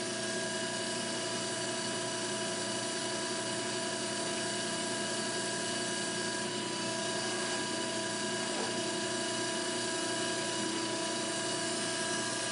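Electric motor and pump of a diesel fuel filter cart running steadily, pumping diesel through the pre-filter and coalescer: an even hum with several constant whining tones that do not change in pitch.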